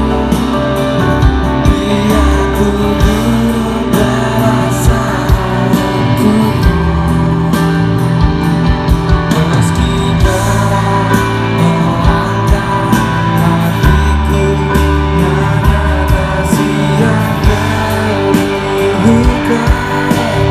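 Rock music with singing and guitar and a steady drum beat.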